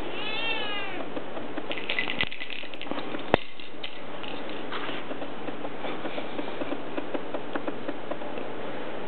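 A cat meows once, a call that rises and then falls, about half a second in. A single sharp click comes a little after three seconds in.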